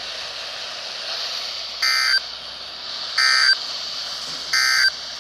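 Three short identical bursts of Emergency Alert System (SAME) digital data tones, each about a third of a second long and a little over a second apart, over steady radio hiss: the pattern of the EAS end-of-message signal.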